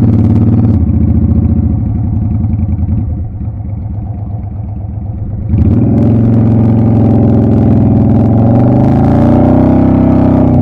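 Motorcycle engine running at low speed, with the throttle eased off for a few seconds and picked up again about five and a half seconds in. The revs then rise and fall near the end.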